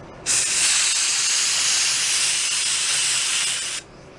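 Compressed-air blow gun hissing in one long blast that begins a moment in and cuts off sharply near the end. The air is driving wood glue into a crack in the drum shell.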